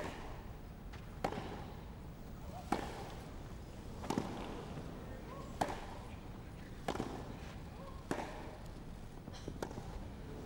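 Tennis racquets striking the ball back and forth in a rally, starting with a serve: about eight sharp pops, roughly one every second and a half.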